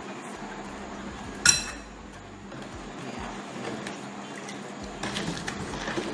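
A metal spoon clinks sharply once against a bowl about a second and a half in. Near the end a drink is stirred with a metal spoon and ladle, with small knocks of metal against the bowl and a light swishing of liquid.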